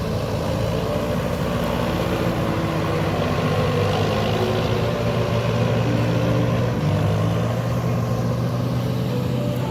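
Tractor engine running steadily, with other engine notes mixed in and the pitch shifting slightly now and then.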